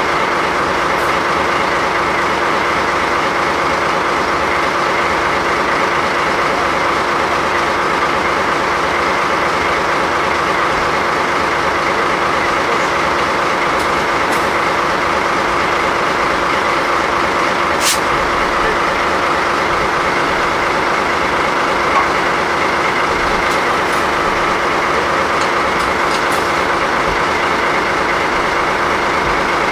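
DD51 diesel locomotive idling close by: a loud, steady engine drone with several held tones. A single sharp click sounds about 18 seconds in.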